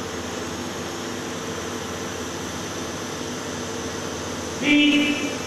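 Steady machinery hum and hiss from the pipe burst-test rig. About a second before the end, a loud pitched tone sounds for about half a second.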